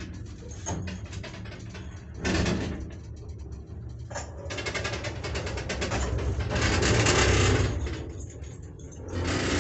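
1976 KMZ (Karacharovo) passenger elevator car travelling in the shaft, its guide shoes scraping and squeaking loudly on the guide rails over a steady low rumble. The scraping comes and goes in several stretches, the longest and loudest about two-thirds of the way through.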